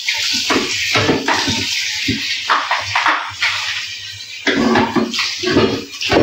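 Tap water running into a kitchen sink while dishes are washed, with a few knocks of crockery.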